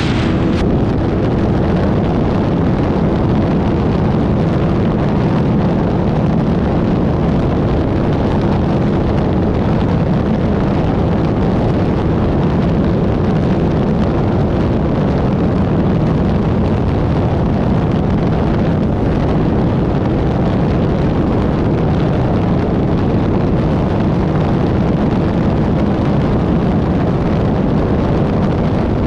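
Off-road desert race car's engine running steadily and loudly, mixed with an even rush of noise.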